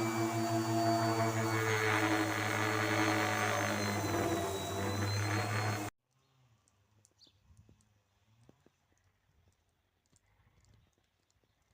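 An electric power tool's motor running steadily for about six seconds, then stopping abruptly, followed by faint light clicks and taps.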